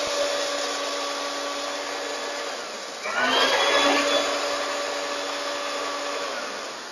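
Small electric mixer-grinder jar grinding roasted flaxseeds into powder. The motor runs, slackens, and is pulsed again about three seconds in, spinning back up, then winds down and stops near the end.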